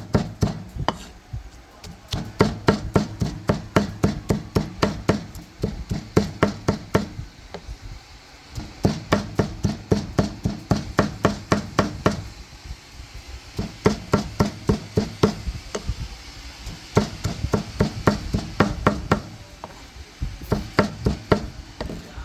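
Cleaver mincing pork with prahok, garlic and chili on a wooden chopping board: quick, even chops, about three or four a second, in runs with brief pauses.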